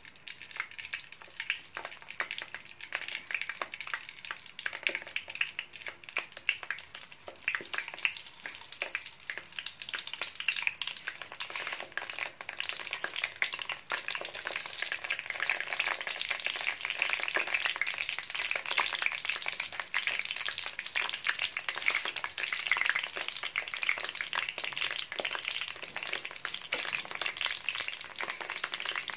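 Eggplant slices frying in hot oil: a steady sizzle with dense crackling, growing louder and busier about a third of the way in as more slices go into the oil.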